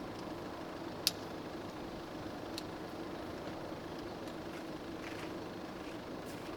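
Steady mechanical hum at an even level, with a couple of short sharp clicks about one and two and a half seconds in.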